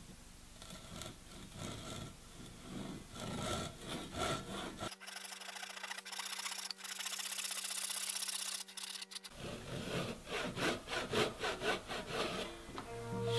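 Japanese pull saw cutting across a wooden beam by hand: repeated rasping strokes in a steady rhythm, with a hissier, thinner-sounding stretch in the middle and quicker strokes after it.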